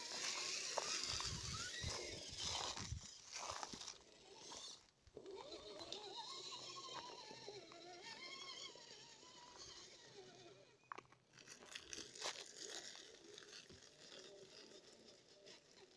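Scale RC crawler's electric motor whining, its pitch rising and falling with the throttle, while its tyres crunch over dry leaves and twigs, with a few sharp clicks about two thirds of the way in.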